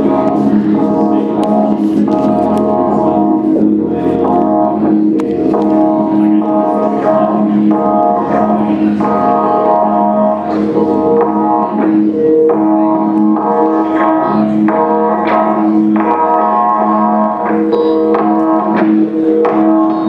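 Live band music: a steady low drone held under a chord that pulses in short repeated blocks, with light percussive clicks throughout.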